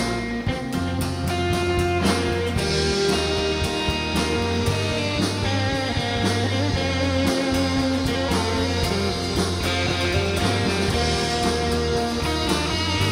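Worship band playing an instrumental intro: guitars over a steady bass line, with drums keeping an even beat. The band fills out about two seconds in.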